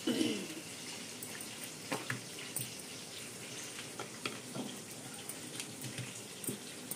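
Wooden rolling pin rolling dough out thin on a granite countertop: a soft, even rubbing, with a few light clicks and knocks scattered through.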